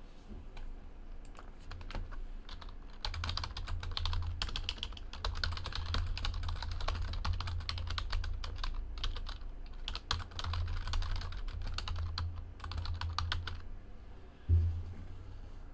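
Typing on a computer keyboard in quick runs of key clicks with short pauses, then a single dull thump near the end.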